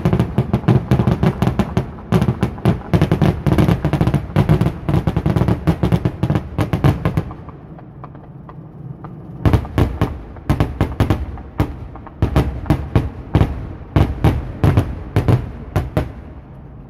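Fireworks going off in quick succession. A dense barrage of crackling bangs runs for about seven seconds, then a short lull, then separate bangs a few a second that ease off near the end.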